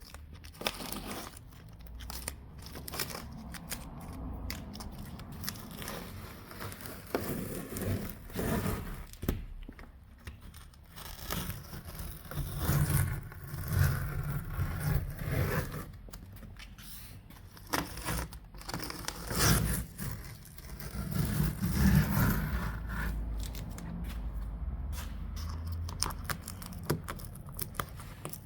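Irregular scraping, rustling and clicking of hands working on car interior parts, louder in stretches with some low knocks.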